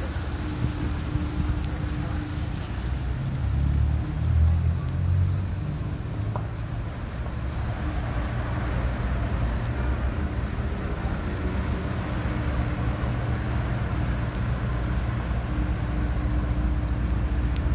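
A motor vehicle running: a steady low rumble that swells louder about four seconds in.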